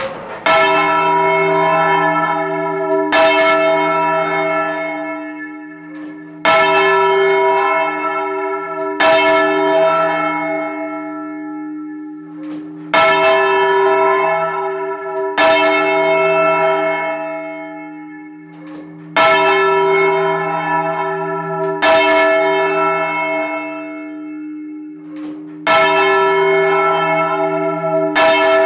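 A single heavy church bell, the tenor of a ring of four, heard close up in the belfry as it is turned over. It strikes nine times, roughly every three seconds, in alternating shorter and longer gaps. Each stroke rings on, and a deep hum carries through between strokes.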